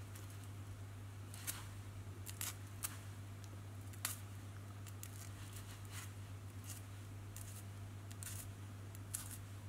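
Small scissors working through expandable mylar sleeving to fray out the tail fibres: light snips and clicks at irregular moments.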